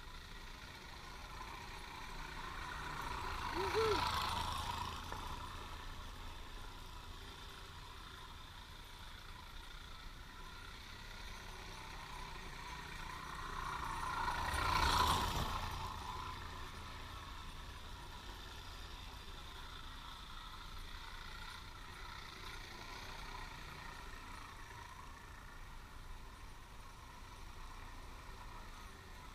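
1962 VéloSolex 2200 moped's small two-stroke engine riding past twice. Each pass swells to a peak and fades away, the first about four seconds in and the second near the middle.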